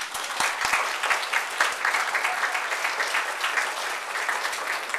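Audience applauding, many hands clapping together, easing off near the end.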